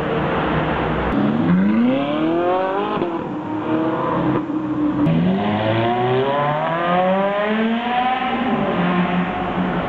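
Ferrari engines accelerating hard in several short spliced clips. The engine note climbs steeply, falls back at each upshift and climbs again, ending on a steady high-revving note. It opens with a second of noisy traffic before the first climb.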